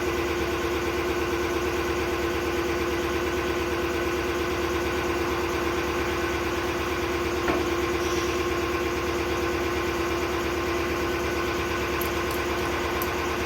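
Car engine idling steadily, an even, unchanging hum with a small click about seven and a half seconds in.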